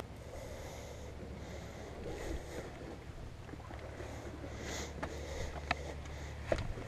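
Quiet outdoor ambience: a low, steady wind rumble on the microphone with faint hiss, and a few light clicks in the last two seconds.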